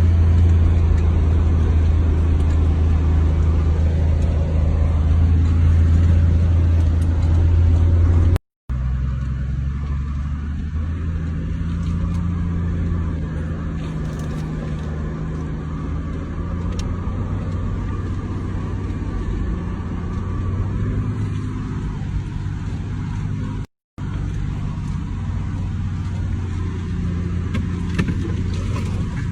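Steady low rumble of a vehicle, with a strong deep hum through the first third; the sound drops out to silence twice for a moment.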